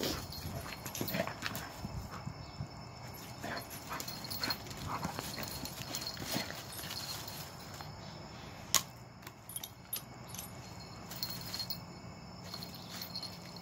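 Two dogs, a large black dog and a small puppy, playing and scuffling in dry leaves and twigs: paws scrabbling and rustling, with a few short dog whines in the first half and one sharp tap near the ninth second.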